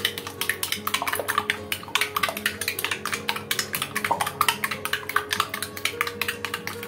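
Metal fork beating egg and sugar in a ceramic bowl, clicking quickly and unevenly against the bowl several times a second.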